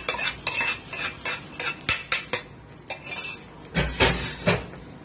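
Metal ladle clinking and scraping against a metal cooking pot as sambar is stirred after a tempering has been added, a series of quick clinks with a few louder knocks near the end.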